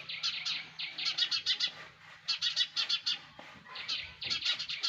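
Sparrows in a nest chirping in quick runs of high notes, three bouts with short pauses between them. A faint steady low hum sits underneath.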